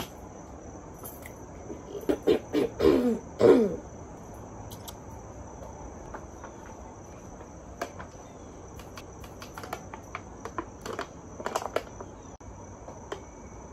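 A steady high-pitched insect drone, like crickets, runs under the whole stretch. About two to four seconds in, a few loud, brief vocal sounds stand out. Scattered clicks and taps come later.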